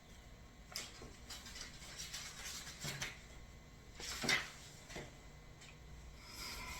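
Faint rustling and light knocks of a paperback book being handled and its pages turned, in short irregular bursts, the loudest about four seconds in.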